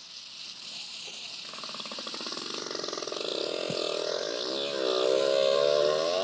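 Recorded whale calls heard through underwater hiss: a buzzing call builds and turns into wavering moans that rise and fall in pitch, growing louder.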